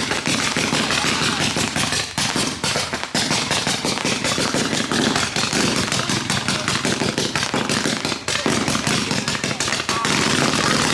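String of firecrackers going off in a rapid, unbroken crackle of sharp pops.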